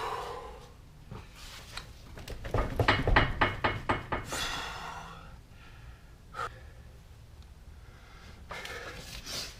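A quick run of sharp clicks and knocks, about four or five a second, followed by a short rustle and a few scattered clicks.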